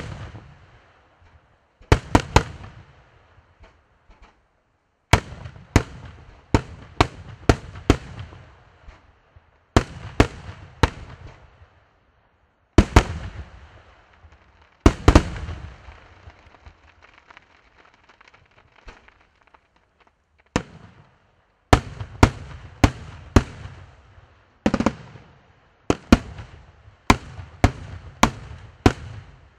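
Aerial firework shells bursting: volleys of sharp bangs, several in quick succession, each followed by a rumbling echo, with brief pauses between volleys and a longer lull a little past the middle.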